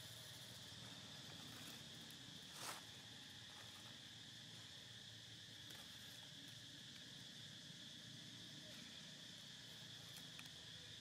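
Faint, steady insect chorus, a continuous high buzz, with one brief crackle about two and a half seconds in.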